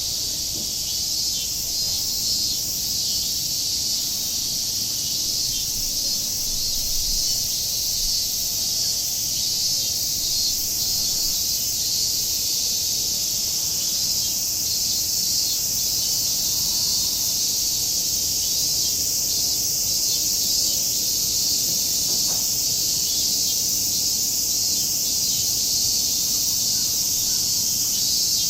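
Steady chorus of cicadas, a continuous high buzz without pauses.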